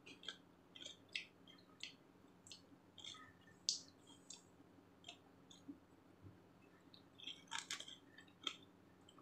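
Faint, irregular wet clicks and crunches of a person chewing raw vegetable salad close to the microphone, with a quick cluster of clicks about seven and a half seconds in, over a faint steady low hum.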